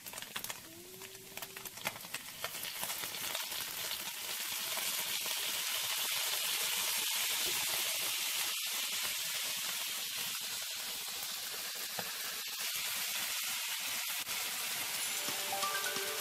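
Tofu cubes frying in oil in a skillet, sizzling with scattered crackles. Soy sauce poured into the hot pan makes the sizzle swell over the first few seconds, and it then holds steady.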